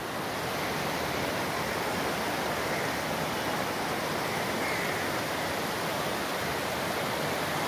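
River water rushing over rocks in shallow rapids and small cascades, a steady rush.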